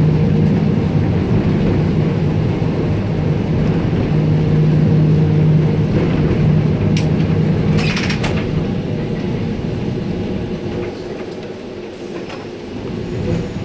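Heritage streetcar running along its track, heard from inside the car: a steady rumble with a low hum. The hum drops away after about eight seconds and the running grows quieter toward the end, with a couple of sharp clicks about seven and eight seconds in.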